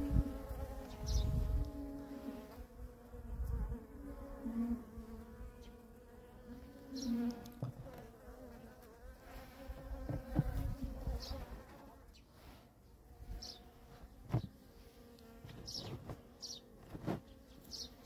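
Honeybees at an open hive buzzing in a steady, wavering hum, with a few sharp knocks from the hive being handled.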